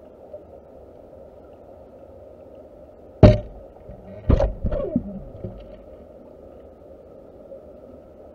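Underwater camera recording: a steady muffled hum of water, broken about three seconds in by one sharp knock and, a second later, two or three more knocks.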